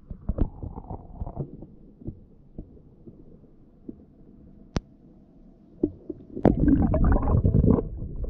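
Water slapping and knocking against a waterproof action camera held at the surface beside a kayak's hull, with a single sharp click near the middle. About six and a half seconds in, a loud, dense rush of water begins as the camera goes under the surface, easing after about a second and a half into a steady underwater rushing.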